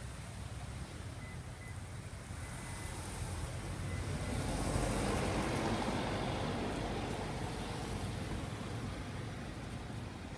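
A passing motor vehicle: a steady rushing noise that swells to its loudest about halfway through and then slowly fades.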